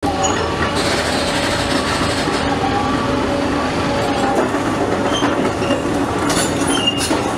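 Large tracked excavator dragging a ripper tooth through a tram track bed. The engine runs steadily under heavy metal-on-metal scraping and grinding as the steel rails and broken pavement are torn up, with short high squeals near the end.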